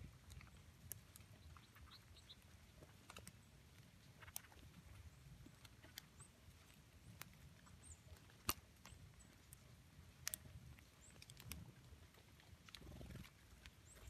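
Near-silent snowy woodland: sparse faint ticks and light pattering, with a few faint, very short high bird chirps over a low wind rumble. One sharper tick stands out past the middle.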